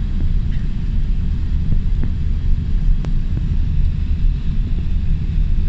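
Jet airliner cabin noise beside the wing-mounted turbofan engine while taxiing onto the runway: a steady low rumble, with a faint click about three seconds in.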